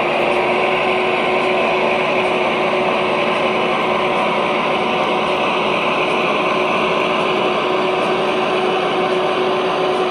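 O gauge model diesel locomotives running steadily: an even mechanical whir with a constant hum through it.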